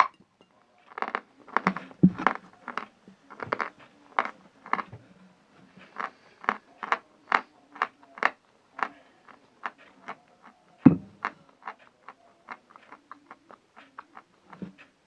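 Mouth chewing a piece of 'Nastena' eating chalk: a string of short, soft wet clicks, about two to three a second, as the chalk has already turned to a creamy paste. A louder low thud comes about two seconds in and again about eleven seconds in.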